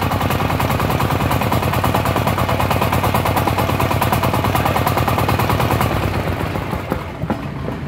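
Tianli 192F 13 hp single-cylinder air-cooled diesel engine running on test with a fast, even clatter. It goes quieter about seven seconds in.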